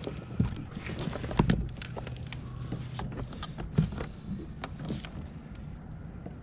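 Fishing gear being handled on a kayak: irregular clicks, rattles and knocks, with three dull thumps, the loudest about one and a half seconds in.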